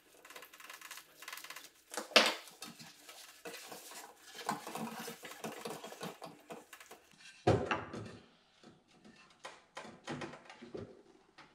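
Hands handling and fitting the foam-padded heater core into its heater housing: scattered clicks, scrapes and rustles, with a sharp knock about two seconds in and a heavier thump about seven and a half seconds in.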